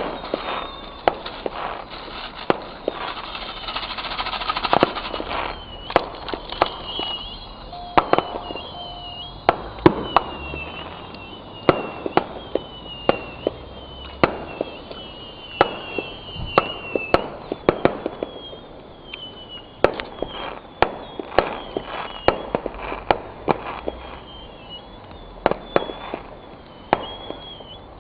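Fireworks going off: many sharp bangs and cracks at irregular intervals, with a short high falling whistle repeating through much of it.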